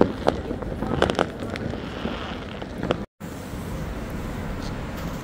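Fireworks and firecrackers going off: several sharp bangs and crackles over the first three seconds. A little after three seconds the sound cuts off abruptly and gives way to a steady background noise with no bangs.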